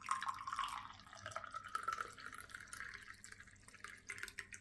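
Freshly steeped ginger and citrus-peel infusion being poured out, the pouring tone rising slowly in pitch as the vessel fills, then trailing off into drips and small clicks.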